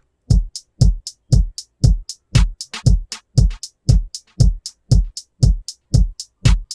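Drum loop playing unprocessed, the compressor bypassed: a steady beat of about two kick-drum hits a second, each dropping quickly in pitch, with bright high hits on top.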